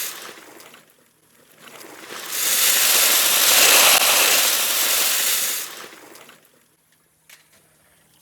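Water rushing down a wooden rain-gutter marble run with a mass of marbles rolling in it, in two surges: the first fades out within the first second, the second swells about two seconds in and dies away a little after five seconds.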